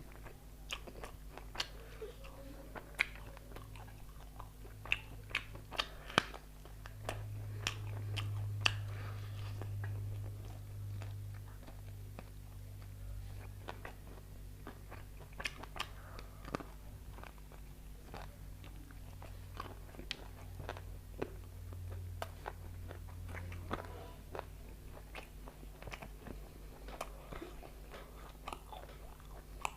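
A person chewing and biting food close to the microphone, with scattered sharp crunches and wet mouth clicks throughout. A low steady hum runs underneath.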